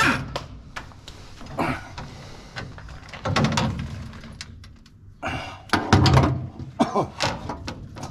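Irregular metal clicks, knocks and thuds as combine parts and hand tools are handled, with a heavier thud or clank about five to six seconds in.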